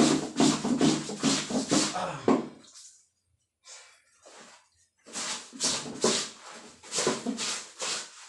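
Wet laundry being scrubbed by hand, fabric rubbed against fabric in quick rhythmic strokes, about two to three a second. The strokes stop for about two seconds near the middle and then resume.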